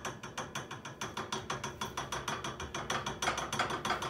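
A spoon clicking rapidly and evenly against the side of a plastic mixing bowl as pancake batter is stirred, about eight clicks a second.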